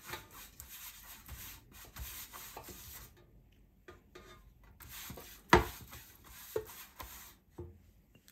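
Silicone pastry brush rubbing an oil-and-flour mixture over the inside of a loaf pan, in two spells of scratchy strokes. There is a sharp knock about halfway through and a smaller one a second later.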